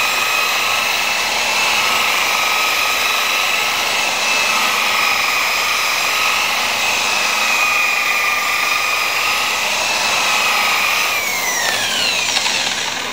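Electric rotary car polisher with a foam pad running steadily against the paint, a constant motor whine. About eleven seconds in it is switched off and its whine falls in pitch as it spins down.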